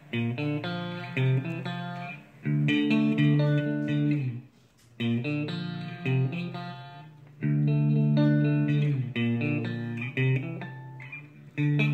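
Jackson JS32Q electric guitar played through a Marshall MG30CFX combo amp on its clean channel: a repeating riff of single notes and chords, in phrases of about two and a half seconds with a brief break between them. The amp, dried out after being submerged, plays clean with no popping or crackling.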